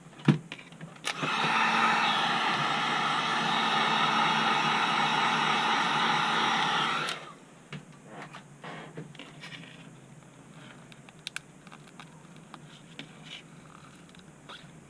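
Heat gun blowing steadily for about six seconds, starting about a second in and cutting off sharply, warming the phone's back glass to soften its adhesive. Light clicks and taps follow.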